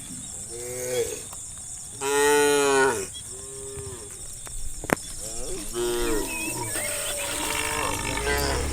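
Cattle mooing several times, one call after another, the loudest and longest about two seconds in. A single sharp click comes near the middle.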